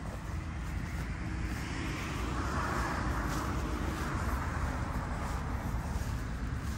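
Road traffic: a car passing by, its noise swelling and fading about two to four seconds in, over a steady low rumble.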